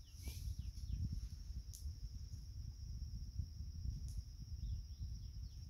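Insects buzzing steadily at a high pitch, with a few short falling bird chirps near the start and again near the end, over a low rumbling noise.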